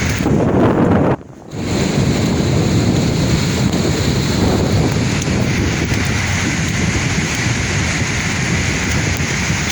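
Sea waves breaking and washing in a steady rush, with wind buffeting the microphone. The sound drops out briefly just over a second in, then carries on.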